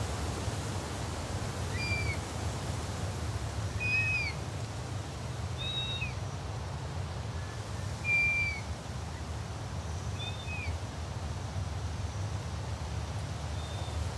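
A bird of prey calling: about six short whistled cries, each held briefly and then bending down in pitch, roughly two seconds apart, the loudest about eight seconds in. A steady low rumble runs beneath them.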